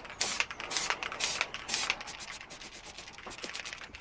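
Hycote Double Acrylic aerosol can of space grey metallic paint spraying in short hissing bursts, about two a second, then lighter, shorter spurts over the last two seconds.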